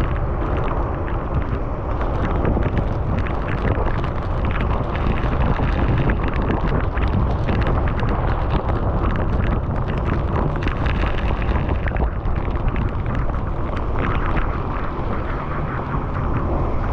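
Wind rumbling steadily on the microphone of a moving bicycle, with a constant hiss above it from the wet ride.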